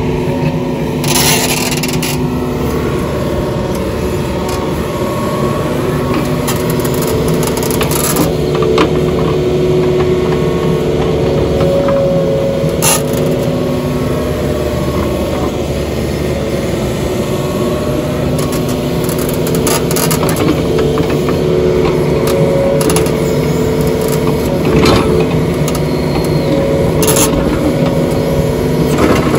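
Compact tracked excavator's diesel engine running steadily under working load, with the bucket scraping and dropping clay soil into a trench. A few sharp scrapes and knocks of the bucket stand out now and then.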